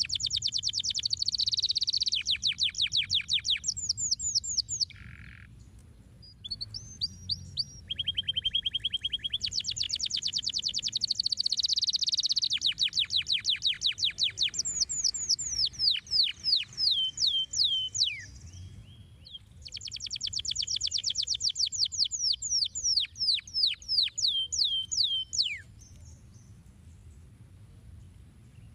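Domestic canary singing: fast trills of repeated high notes, many sweeping downward, delivered in several long phrases with short pauses between them.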